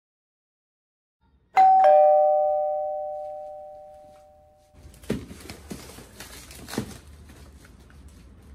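Two-note ding-dong doorbell chime, a higher note then a lower one, ringing and fading over about three seconds. After it comes low room noise with a few soft thumps and rustles.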